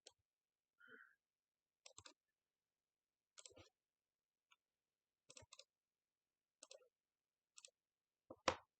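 Faint, scattered clicks of a computer mouse, roughly one a second, with a louder click near the end.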